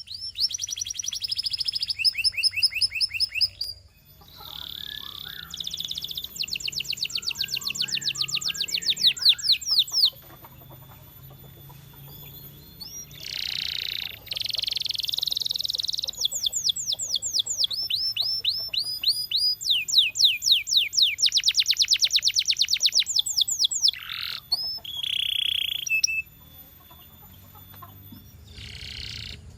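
Russian canary singing: runs of fast, repeated chirping trills lasting a few seconds each, broken by short pauses and a few held whistled notes.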